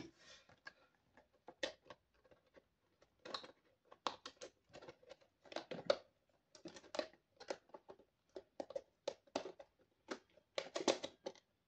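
Faint, irregular crackles and ticks of plastic packaging, coming in small scattered clusters.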